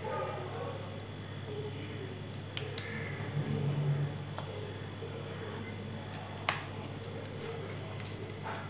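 Silicone spatula scraping sticky custard halwa from a metal pan and spreading it in a baking tray: soft scrapes and small clicks, with one sharper tap about six and a half seconds in, over a steady low hum.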